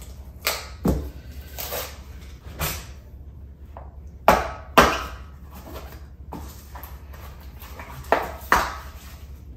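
Kitchen utensil noise as a teaspoon of baking soda is measured from its cardboard box into a mixing bowl: a measuring spoon tapping and knocking, mostly in pairs, the loudest pair about halfway through.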